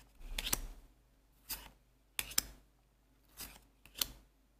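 Trading cards being slid and flipped one by one in the hands: five short papery swishes, about one a second.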